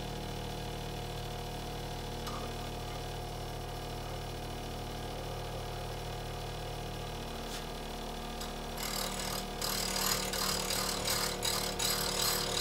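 Bench grinder running with a steady motor hum. About nine seconds in, a steel chisel blade is pressed to the spinning wheel, and a grinding sound comes in short, uneven strokes as a hollow grind is put into the bevel.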